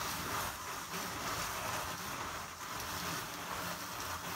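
Steady close-up rustling hiss of wool rubbing against wool, as carded fibre is worked over with a small brush at a drum carder.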